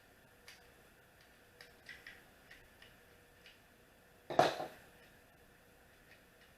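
Light, scattered clicks and taps of hand work with a screwdriver on a 3D printer, driving a small screw back in, with one louder clatter about four and a half seconds in.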